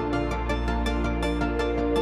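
Background music with a quick steady beat and held chords.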